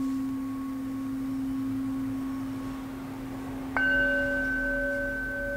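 A steady low pure tone from a crystal singing bowl rings on. About three and a half seconds in, a metal singing bowl is struck once with a mallet and rings on with several clear overtones.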